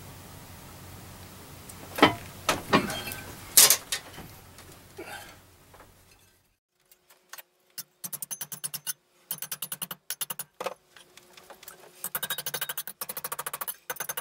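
Ball-peen hammer striking a metal strip clamped in a bench vise, bending it over into a flange. Three sharp metallic clanks come in the first few seconds, and the second half is quick runs of rapid light taps with a faint ring from the metal.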